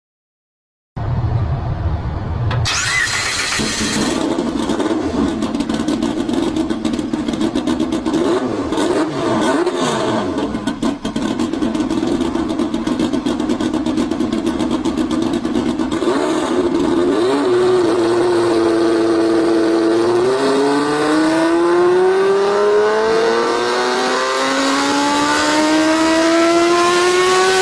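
Turbocharged car engine, billed at 3000 horsepower, starting about a second in and running at a steady pitch, then rising smoothly and continuously in pitch over the last several seconds as it climbs in revs.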